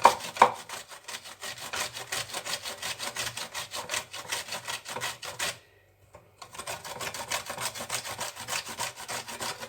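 A whole frozen lemon with its peel rasped against a coarse grater in quick, repeated scraping strokes, several a second, with two sharper knocks at the start and a break of about a second a little past halfway. The fruit is frozen hard, which makes it slow going on the grater.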